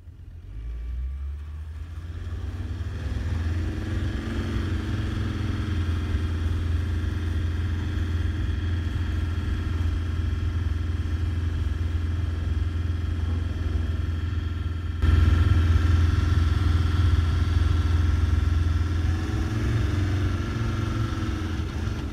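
A steady, low engine running sound, fading in over the first couple of seconds and jumping suddenly louder about two-thirds of the way through.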